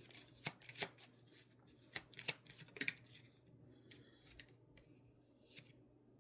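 Tarot cards being shuffled and handled: a quick run of sharp card snaps and clicks over the first three seconds, then a few scattered ones.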